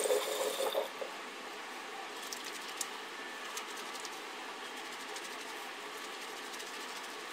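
Water running from a tap, shut off about a second in. A steady background hum follows, with a few faint ticks.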